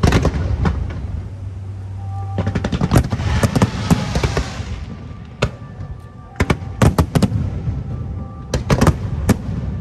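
Fireworks bursting overhead: sharp bangs in clusters, with a crackling shower of sparks about three to four seconds in.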